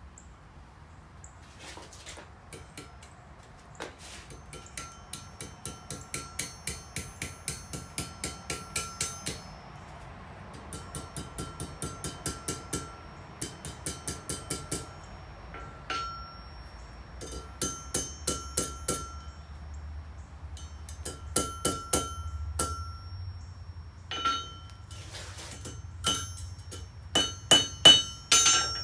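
Blacksmith's hammer striking hot iron on an anvil in quick runs of about four or five blows a second, each blow ringing, with short pauses between runs, as the end of an S-hook is forged and curled. The last few blows near the end are the loudest.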